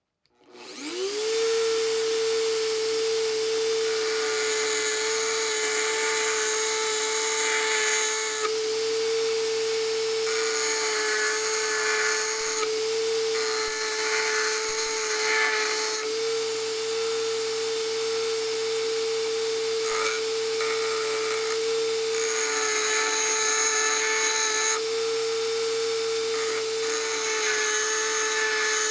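Dremel rotary tool starting up about half a second in, its whine rising and then running steadily at high speed. A barrel-shaped grinding stone grinds a steel flathead screwdriver tip in passes that come and go, sharpening it to a new point.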